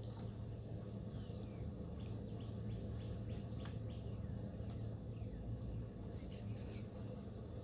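Outdoor ambience of scattered bird chirps, many short calls sliding down in pitch, with a thin, steady high insect buzz in the second half, over a low, steady rumble.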